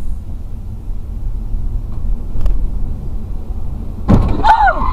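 Steady low rumble of a car on the move, engine and road noise heard from inside the cabin, with a single faint click about halfway. Near the end a sudden loud burst comes in, and with it high, rising-and-falling cries of a voice.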